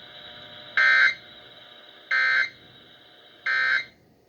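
Emergency Alert System end-of-message data tones: three identical short, buzzy bursts of SAME digital code, about 1.4 seconds apart, signalling the end of the alert broadcast over FM radio.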